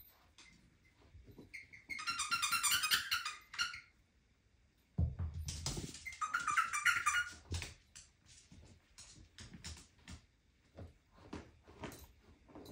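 Small dog digging and nosing at a rolled-up fabric mat on a tile floor, with soft rustles and light clicks from about halfway on. Earlier, two loud high-pitched warbling sounds, each lasting a second or two, are the loudest thing heard, with a dull thump between them.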